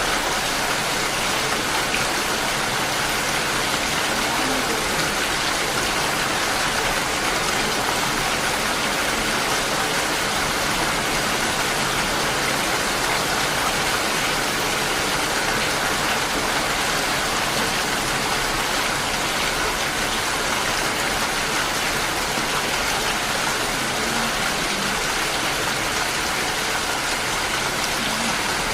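Steady rain falling, an even hiss with no breaks or single loud drops.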